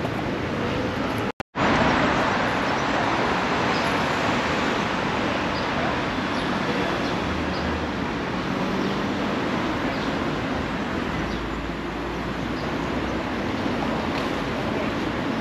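City street ambience: steady traffic noise from passing vehicles, with a brief total dropout about a second and a half in.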